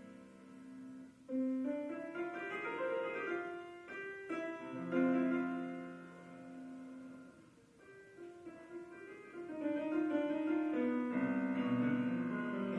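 Piano playing a slow, quiet piece, single notes and chords left to ring and fade; about eleven seconds in it grows louder and fuller, with deeper bass notes.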